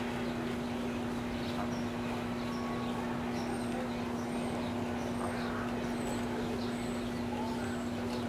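Mallard ducklings peeping repeatedly in short, high, thin notes over a steady low hum.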